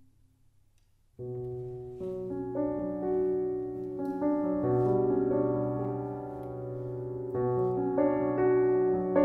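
Grand piano playing a slow passage of sustained chords, coming in about a second in after a brief hush and swelling as the chords change.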